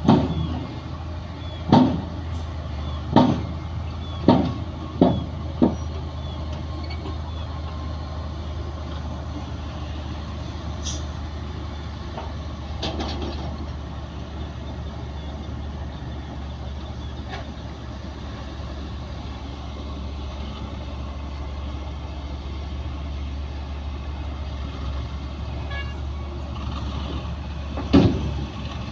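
Diesel bulldozer engine running steadily at work, a low, even rumble. About six sharp bangs in the first six seconds and one more near the end rise above it.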